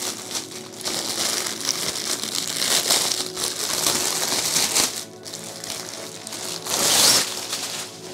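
Clear plastic wrapping crinkling and rustling as it is pulled off the round nylon carry bag of a collapsible photo background, with a louder burst of rustling about seven seconds in.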